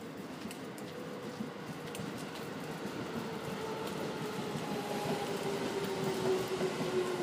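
Keio 9000 series electric commuter train approaching slowly, its running noise growing steadily louder, with a motor whine that slowly falls in pitch.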